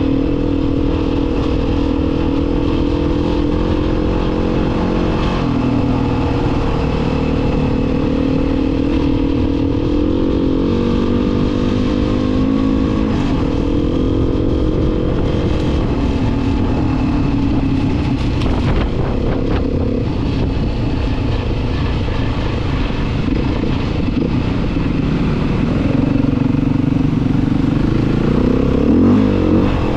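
A vehicle engine running continuously, its pitch shifting up and down a little several times as the speed changes.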